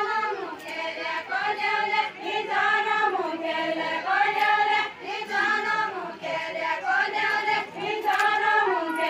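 A group of women singing a deuda folk song together, unaccompanied, in short phrases that slide up and down in pitch.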